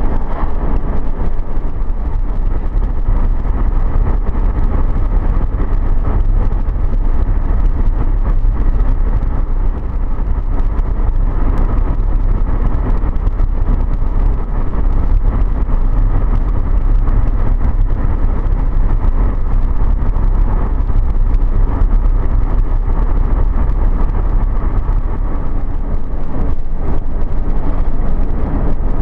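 Vehicle driving at highway speed: a steady, heavy low rumble of road, engine and wind noise that stays even throughout.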